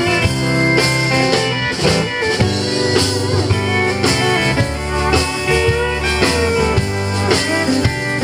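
Live country band playing an instrumental passage with no vocals: guitars over a drum kit keeping a steady beat.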